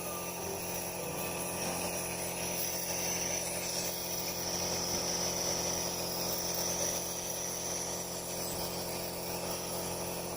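Nebulizer compressor running with a steady mechanical hum during an inhalation treatment.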